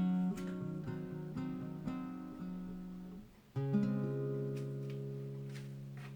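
Background music on acoustic guitar: a run of plucked notes, a brief pause a little past halfway, then one final chord left ringing and slowly fading.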